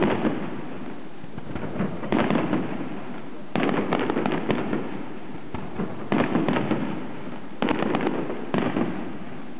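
Aerial fireworks display: a series of shell bursts, each starting sharply and followed by a run of dense crackling, coming every second and a half to two and a half seconds over a continuous background crackle.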